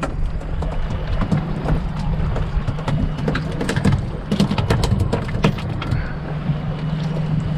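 Boat's outboard engine running steadily at trolling speed, with wind and water noise. From about three to five and a half seconds in comes a run of sharp knocks and slaps as a small blackfin tuna flaps against the fiberglass deck.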